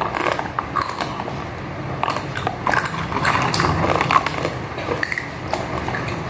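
Irregular small clicks and clinks of eating: utensils, dishes and food being handled.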